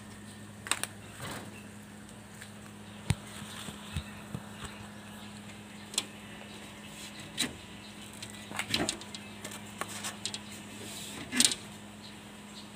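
Scattered clicks and light knocks from a hand handling a sliding screen door and its frame, the loudest a short clatter near the end, over a steady low hum.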